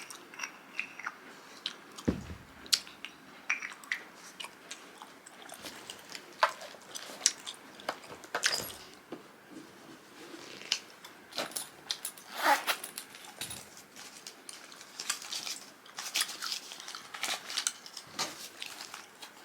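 Lip smacks and small wet clicks close to the microphone while lip gloss is put on, scattered irregularly throughout.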